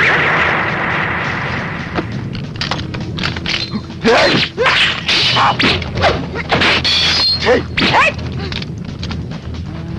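An explosion's rumble dies away over the first two seconds. Then comes a sword fight: a run of sharp hits and blade clashes, with short shouts and cries from the fighters.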